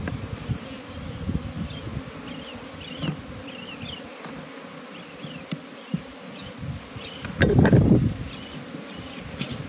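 Honeybees buzzing steadily around an opened top-bar hive as the combs are worked. About seven and a half seconds in, a brief loud low rush of noise cuts across the buzzing.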